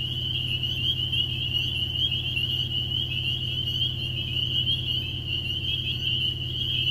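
Spring peepers calling in a dense night chorus: many short, high, rising peeps overlapping without a break, loud, over a steady low hum.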